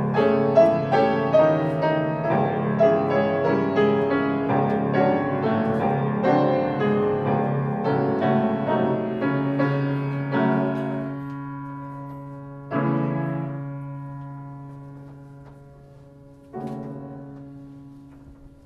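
Piano music: a flowing passage of many notes that thins out after about eleven seconds into two single chords, each struck and left to ring and fade.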